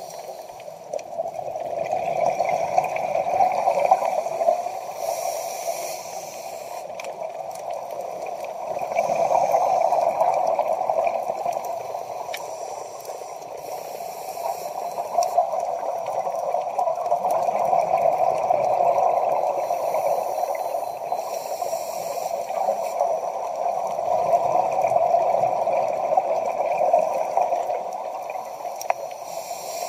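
Scuba regulator breathing heard underwater: a bubbling, gurgling noise that swells and fades every several seconds with each breath, with short hissing bursts as exhaled bubbles stream out.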